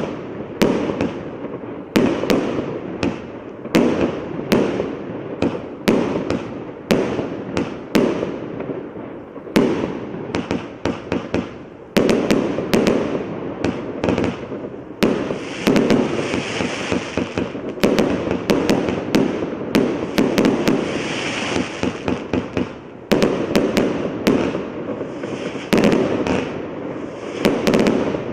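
Consumer fireworks cake firing shot after shot, with sharp bangs about once a second, each followed by clusters of rapid crackles. Around the middle the crackling thickens into a steady crackling hiss for several seconds.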